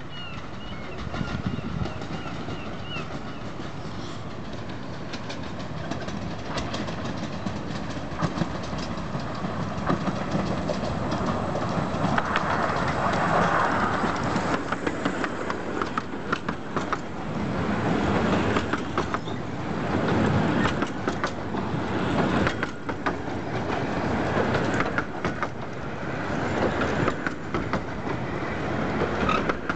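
Typhoon, a 15-inch gauge Pacific steam locomotive, arriving slowly with its coaches, growing louder as it nears and passes about halfway through. The coaches then roll by with clicks and clatter from the wheels over the rail joints.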